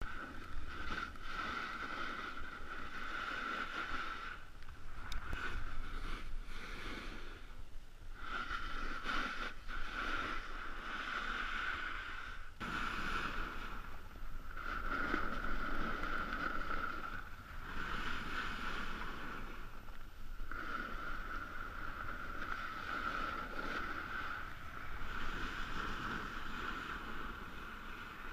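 Snow hissing and scraping under a rider sliding down a groomed run, with wind buffeting the microphone. The hiss breaks off briefly every few seconds, as turns are linked.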